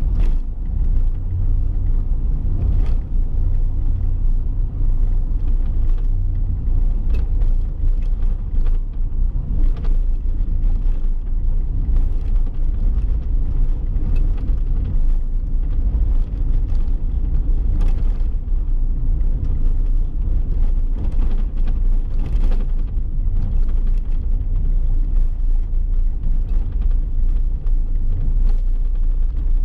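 Steady low rumble of a vehicle driving along the road, engine and tyre noise with occasional faint clicks.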